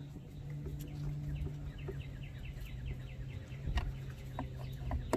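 Hand screwdriver snugging down the screws of a boat speaker's grille, with a few light clicks near the end. A quick run of short, high, falling chirps comes in the middle, over a steady low hum.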